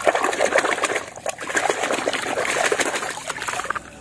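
A hand swishing and scrubbing a toy car in a tub of foamy, muddy water: continuous splashing and sloshing with a brief lull about a second in. It stops just before the end as the toy is lifted out of the water.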